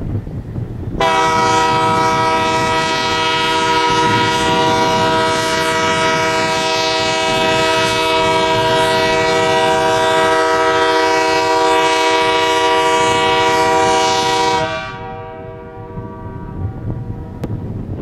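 Nathan K3LA three-chime air horn on an ALCo C425 diesel locomotive, blown in one long steady chord for about fourteen seconds during an FRA horn loudness test. It starts about a second in, then cuts off and dies away over a couple of seconds.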